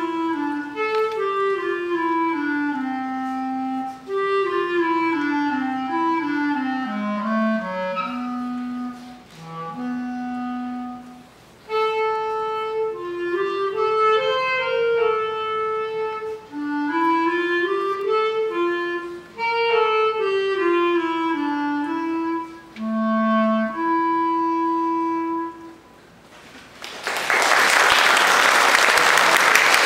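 Solo clarinet playing an étude in G major, one melodic line of held notes with short breaks between phrases; it ends about 26 seconds in. An audience breaks into loud applause near the end.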